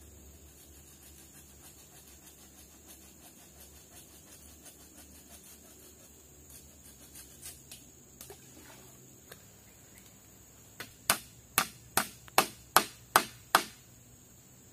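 Faint small ticks and rustling, then about eleven seconds in a quick run of eight sharp knocks, roughly two or three a second, the loudest thing here.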